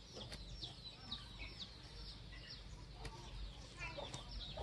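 Chickens clucking faintly, with many short, high, falling chirps.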